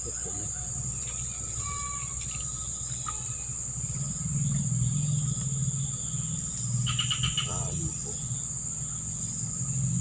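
Insects droning in one continuous high-pitched tone, over a low rumble that swells in the middle, with a brief chirping call about seven seconds in.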